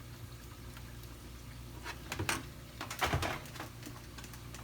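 A few light clicks and knocks of a utensil against a pot of grits, a cluster a little over two seconds in and another about three seconds in, over a low steady hum.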